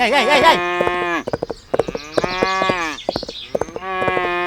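Cattle mooing: three long drawn-out moos, each dropping in pitch at its end, with quick clicks in between.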